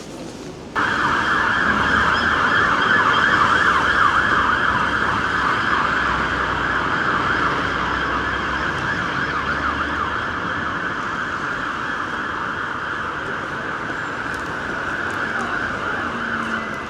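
Emergency vehicle siren sounding, starting abruptly about a second in and slowly fading.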